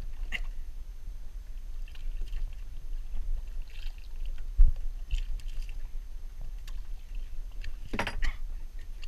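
Water sloshing against the side of a small boat over a low wind rumble, with a dull knock about halfway through. Near the end a short, loud splash as a hooked stingray, held at the surface beside the hull, churns the water.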